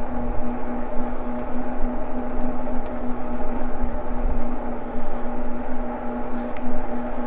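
Eahora Juliet e-bike running at a steady cruising speed on a paved trail: a steady droning hum that holds one pitch throughout, over a fluctuating low wind rumble on the microphone.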